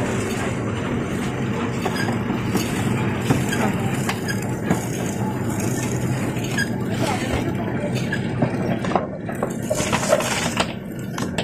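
Hookah charcoal packing machine running: a steady mechanical hum with scattered light clicks and clinks.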